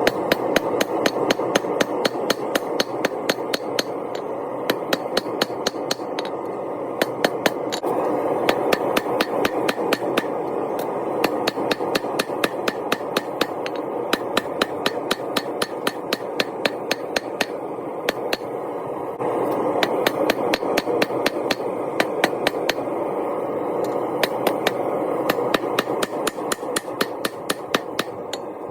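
Hammer blows on hot Damascus steel being forged, a steady run of strikes at about three to four a second, over a steady rushing noise.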